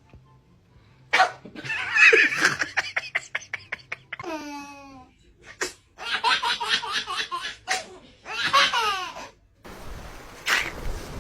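A baby laughing in several bursts of quick, repeated giggles, with a high, gliding squeal in the middle. A steady hiss comes in near the end.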